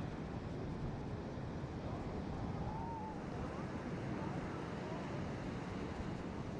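Steady low rushing outdoor noise, with a few faint short chirps over it.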